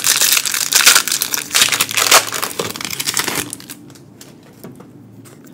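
Foil Pokémon card booster pack wrapper crinkling and crumpling in the hands for about three and a half seconds, as the pack is being handled and opened.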